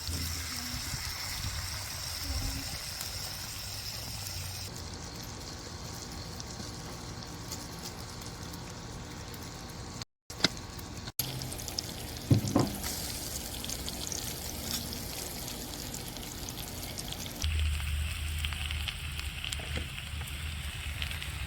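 Food sizzling on a portable grill, in several shots cut together, so the sound changes abruptly a few times, with a brief dropout about ten seconds in and a couple of sharp taps a little after.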